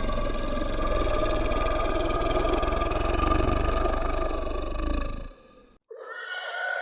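A long, deep monster growl sound effect with a heavy low rumble, which fades out about five seconds in. After a brief silence, a higher-pitched, more tonal growl begins near the end.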